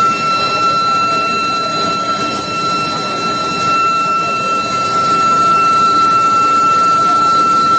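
Induction billet heating furnace running: a steady high-pitched whine from the induction coil, with fainter higher overtones, over a rushing background of machine noise.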